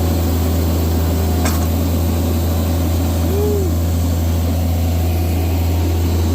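An engine idling steadily with a loud, unchanging low drone, and a faint click about one and a half seconds in.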